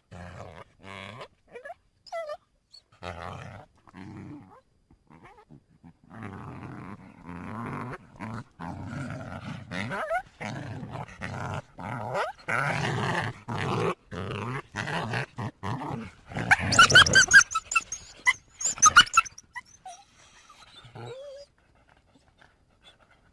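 Coyote calling in a long run of short growling calls, then a quick flurry of loud, high-pitched yelps about three-quarters of the way through, before it falls quiet.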